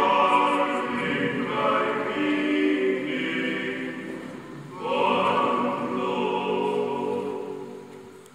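A small group of Sternsinger (Epiphany star singers) singing a carol together in a church, in two sung phrases with a brief break between them; the last phrase dies away near the end as the song finishes.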